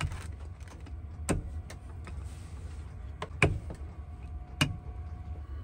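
Five or so sharp knocks and clicks of kitchen things being handled while pizza dough is rolled out on a board, over a steady low hum.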